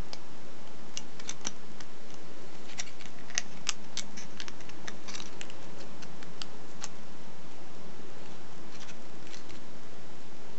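Thin foil chocolate-coin wrapper crinkling and crackling as fingers fold over the corners of its petals, in scattered small crackles that come thickest in the first two-thirds and thin out near the end, over a faint steady hum.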